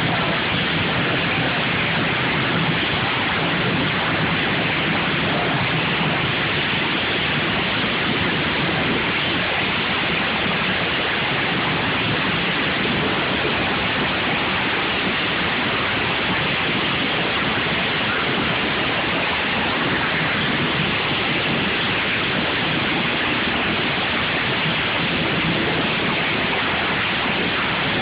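Dense, steady noise of many lawn mower engines running at once during a derby heat, blended into one even roar with no single engine or impact standing out.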